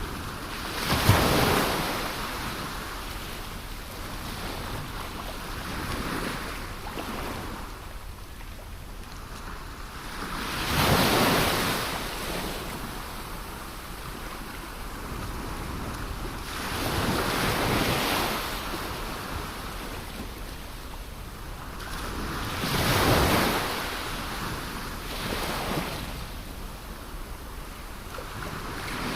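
Ocean waves breaking and washing onto shore, with a big surge about every six seconds and a steady hiss of surf between them; some wind on the microphone.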